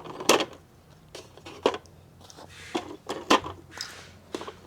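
Several sharp plastic clicks and knocks as small black plastic stands are pulled off the underside of a toy armored car one at a time.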